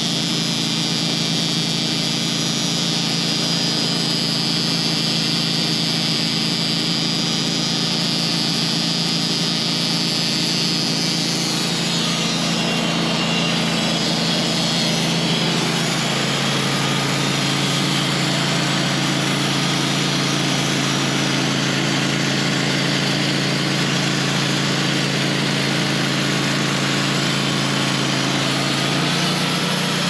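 Wood-Mizer portable bandsaw mill's engine running steadily while the band blade saws through a pine log, with a high cutting hiss that fades about twelve seconds in. The engine note drops a little around sixteen seconds in and rises again near the end.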